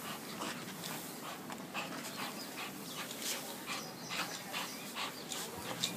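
An American Pit Bull Terrier panting: quick, noisy breaths about two or three a second.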